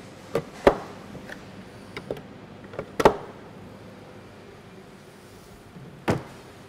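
Sharp knocks and clunks of hard plastic parts: fork-strap blocks being set and pressed into the base of an upturned polypropylene pallet box. The loudest knock comes about three seconds in, with another about six seconds in.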